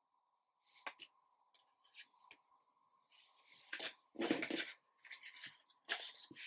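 Trading cards being handled: small clicks and a light rustle, then several louder taps and slides as cards are set down on a table and the stack is picked up and squared, over a faint steady high hum.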